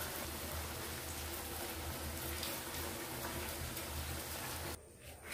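Steady hiss with a low pulsing rumble from cooking on the stove fire, cutting off suddenly near the end.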